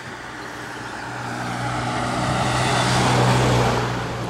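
An aircraft flying over, its engine noise swelling to a peak about three seconds in and then fading, over a steady low hum.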